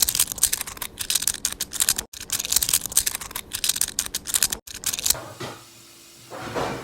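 Rapid, irregular clicking for about five seconds, then it stops.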